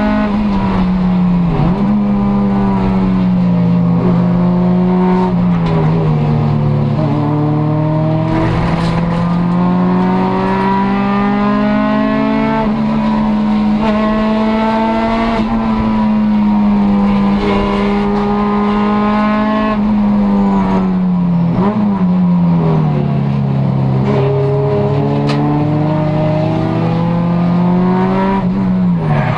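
Race car engine heard from inside the cockpit at full racing pace, its pitch climbing steadily on long pulls and falling away several times as the car slows for corners: about a second in, around six seconds, around twenty-one seconds, and near the end.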